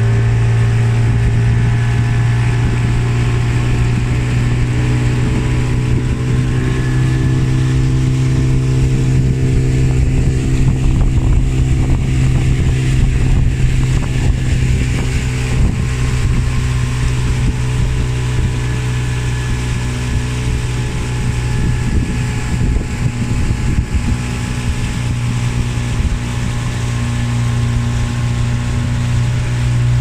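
Outboard motor of a small boat running steadily at cruising speed, a loud low drone, with water rushing and spraying off the hull and wind.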